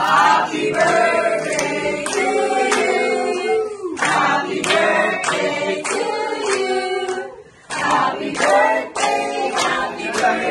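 A small group of people singing a birthday song together, with hands clapping along in time.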